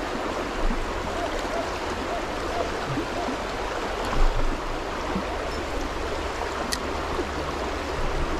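Shallow, fast river running over stones in a riffle: a steady rushing with small gurgles. A brief low thump about four seconds in.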